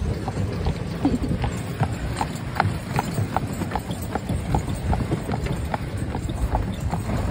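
Hooves of a team of draft horses clip-clopping on an asphalt road as they pull a wagon at a walk, an even beat of about two to three strikes a second.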